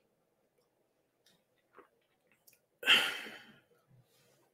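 Near silence with a couple of faint clicks, then about three seconds in a single loud, breathy exhale close to the microphone that fades within a second.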